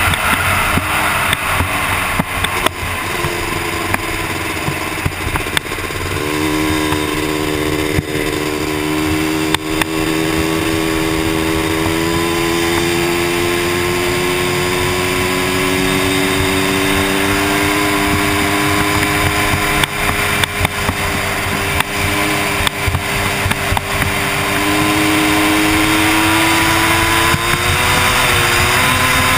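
Honda TRX250R's two-stroke single-cylinder engine running under load as the quad is ridden along a gravel road. Its pitch drifts with throttle, climbing slowly through the middle and stepping up near the end, over a rushing noise with scattered knocks from the rough ride.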